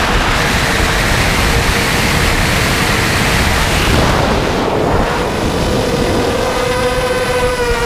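Blackout Mini H quadcopter's brushless motors whining on a 4S battery, under heavy wind rush over the onboard camera's microphone in fast flight. About two-thirds of the way in the wind noise eases and the steady motor whine and its overtones come through clearly, starting to drop in pitch right at the end.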